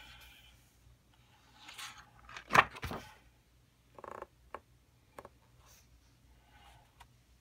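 Pages of a thick-paper coloring book being turned and handled: short paper rustles and flaps, with one sharp slap of a page about two and a half seconds in.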